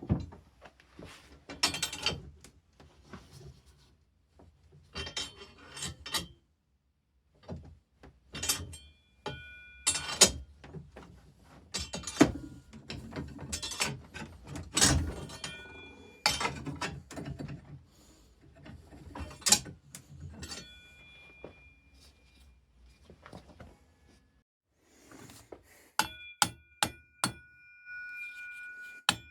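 Hammer blows on steel: irregular strikes and quick clusters of taps, several leaving a metallic ring. Near the end they settle into a steady run of about two ringing blows a second.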